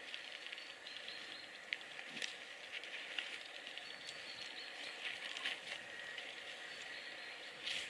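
Countryside birdsong: thin, high whistled bird notes and a few short, harsh calls over a steady outdoor hiss.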